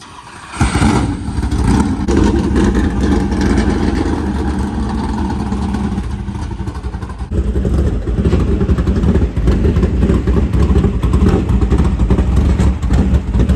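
Loud engine running hard. It starts abruptly about half a second in, eases slightly around the middle, grows louder again and cuts off sharply at the end.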